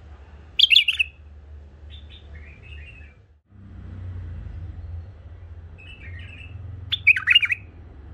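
Caged male white-eared bulbuls calling in short, bubbly, warbling phrases: a loud burst about half a second in, softer phrases around two to three seconds and six seconds in, and another loud burst about seven seconds in.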